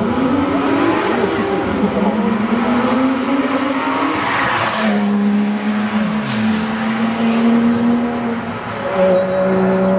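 Porsche 997 GT3 RS flat-six engine held at high revs while the rear tyres spin and squeal in a burnout. The revs climb in the first second, then hold high with a couple of brief dips.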